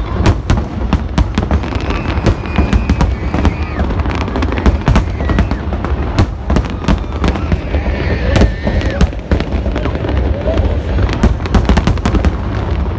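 A fireworks display: a dense, continuous barrage of bangs and crackles, several per second, with brief whistling glides now and then.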